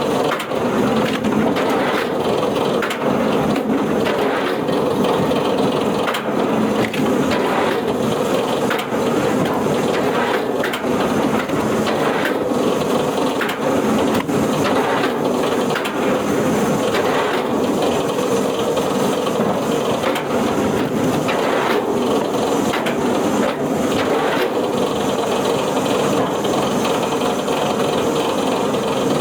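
Wood-processing machine running steadily under load, with frequent sharp cracks of wood being crushed and broken.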